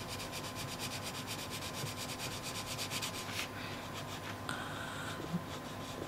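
Arteza Premium coloured pencil rubbing on paper in quick, evenly repeated back-and-forth shading strokes, building up a dark layer; the strokes ease off after about three and a half seconds.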